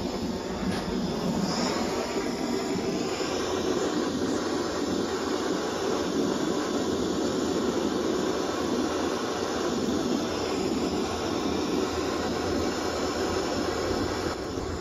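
Camping gas blowtorch flame burning with a steady rushing noise as it heats a fluxed steel crankshaft for silver soldering. The noise stops just before the end.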